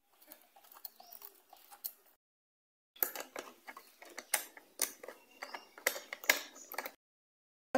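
Screwdriver driving screws into a stand fan's plastic motor housing, with the housing being handled: irregular clicks, taps and scrapes. The sound cuts out completely twice for about a second.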